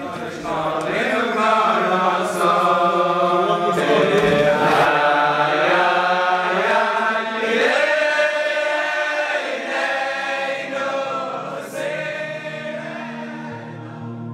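A group of men singing a Jewish chant together, one voice leading and the rest joining in a swelling, rising-and-falling melody. Near the end, a steady held tone of background music comes in under the singing.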